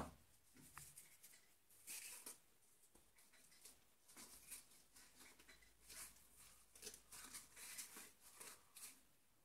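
Faint rustling and crinkling of crumpled paper being squeezed and wrapped by hand around the neck of a plastic bottle, in short scratchy bursts.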